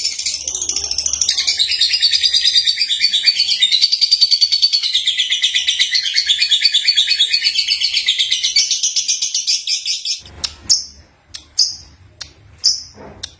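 Young lovebird (Agapornis) singing: a loud, fast, unbroken chattering warble of rapid high notes for about ten seconds, which then breaks into a few separate short, sharp chirps.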